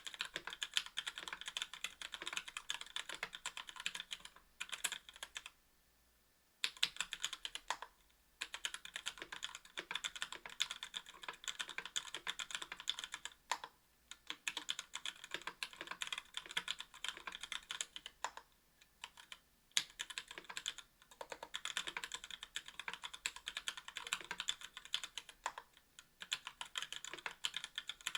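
Steady typing on a KBDfans Tofu 60% aluminium-case keyboard with stock Gateron Merlot linear switches and GMK keycaps: fast runs of crisp keystroke clicks, broken by a few brief pauses of about a second.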